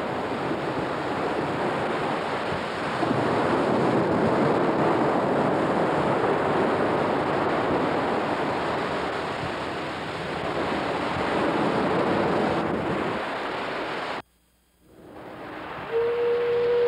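Ocean surf breaking and washing up a sandy beach, swelling louder twice. It cuts off suddenly about fourteen seconds in, and near the end a steady, held low tone begins.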